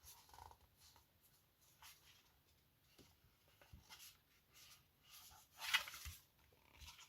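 Faint handling sounds of a plastic wireless charging station being turned over: a few soft taps and rubs, the loudest a brief scrape a little before six seconds in.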